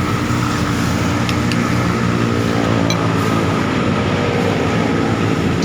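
A motor vehicle engine running close by on the road, a steady hum whose pitch shifts a little.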